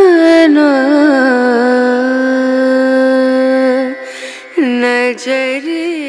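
A solo voice singing a slow melody with ornamented bends in pitch. It holds one long note for about two seconds, breaks off briefly a little past four seconds in, then resumes.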